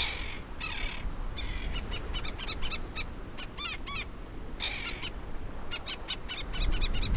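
Terns calling in quick runs of short, sharp, high calls, over the low steady wash of sea waves.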